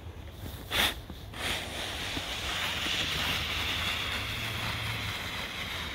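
Snowboard sliding downhill over hard-packed, icy snow: a short whoosh just under a second in, then a steady scraping hiss from about a second and a half on.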